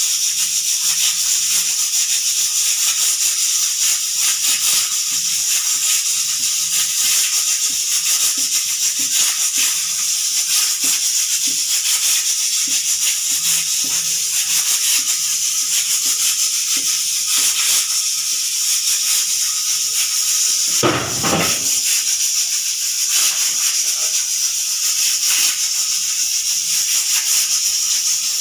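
Pressure cooker whistle venting steam in a loud, steady hiss that flutters rapidly as the weight rattles. There is a brief low thump about 21 seconds in.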